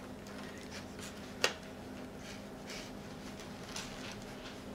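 Metal knife and fork cutting liver in a styrofoam takeout container: faint scraping strokes, with one sharp click about a second and a half in and a smaller one near the end, over a steady low hum.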